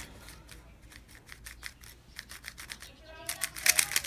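Yuxin Little Magic magnetic 3x3 speedcube being turned by hand for its first turns out of the box: its factory-lubed plastic layers click as they turn. The clicks are faint at first and get faster and louder about three seconds in.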